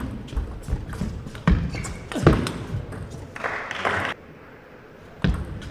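Table tennis ball clicking and bouncing, with scattered thuds from players' shoes on the court floor; a denser clatter of noise comes just before four seconds in.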